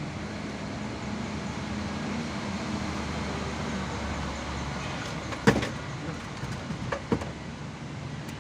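A vehicle engine running steadily with a low hum. A sharp metallic knock comes about five and a half seconds in, and two lighter knocks follow about a second and a half later.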